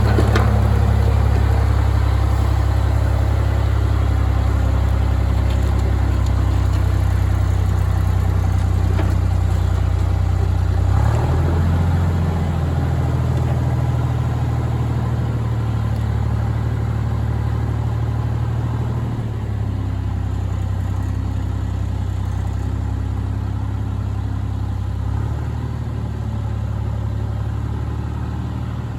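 An engine running steadily, with its speed shifting about eleven seconds in and again twice later.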